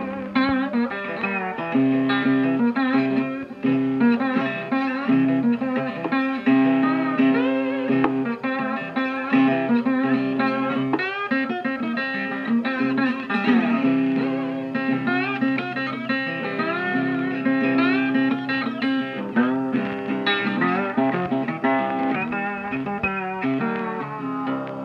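Background guitar music: plucked notes, some of them bending in pitch, over a steady low note. It fades out at the very end.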